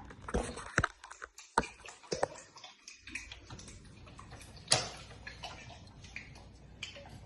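Scattered light clicks and knocks of a cooking pot and stove being handled, irregular, with a sharper knock about one and a half seconds in and another near five seconds.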